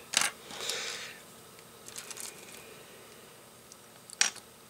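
Small plastic LEGO pieces clicking and rattling as they are handled and pressed together by hand, with a sharp click just after the start and another about four seconds in, and light ticks in between.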